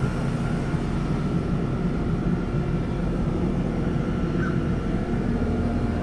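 Outdoor heat pump unit running in heat mode: a steady fan and compressor hum with a few held tones.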